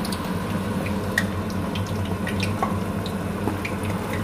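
Jumbo lumpia frying in hot oil in a pan: a steady sizzle with scattered small crackles and pops, over a steady low hum.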